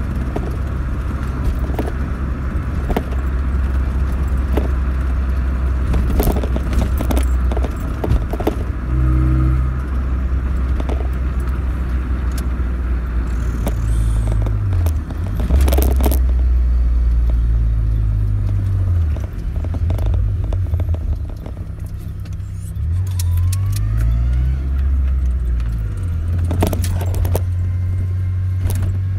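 Pickup truck engine running, heard from inside the cab; its pitch rises and drops several times as the truck changes speed and gear. Light jingling and rattling clicks are scattered over it.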